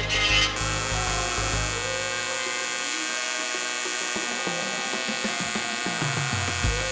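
A die grinder's carbide burr cutting steel briefly, stopping about half a second in. Then the steady electric hum of a TIG welding arc on a rusted GM engine oil pan, with a few faint crackles near the end.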